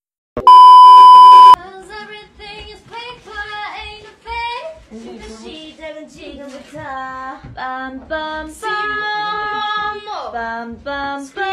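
A loud, steady electronic beep lasting about a second near the start, then a young woman's voice singing short phrases and held notes, as in vocal practice.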